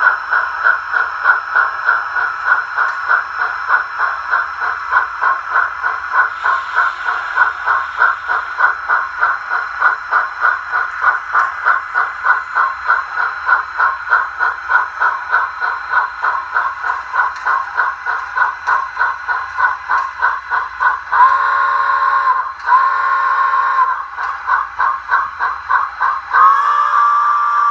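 Electronic steam sound from model steam locomotives: a steady chuffing of about four beats a second. Near the end the whistle gives two short blasts, then a longer one.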